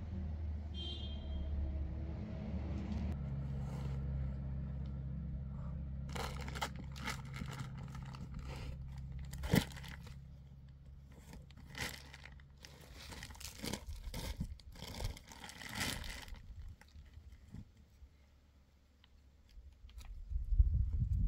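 Plastic bags and bedding crinkling and rustling as they are handled, a string of short crackles, over a steady low hum that fades out about halfway. A louder low rumble starts near the end.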